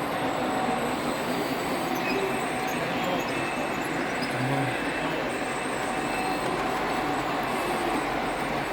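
Model railway train running steadily on its track, a continuous rail rumble with faint whining tones.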